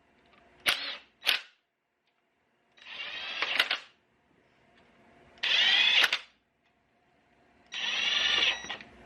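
Cordless impact wrench spinning ARP main-stud nuts down onto the engine's main bearing caps in short trigger pulls, seating the caps before torquing. Two quick blips come first, then three runs of about a second each, the motor whine rising and falling with each pull.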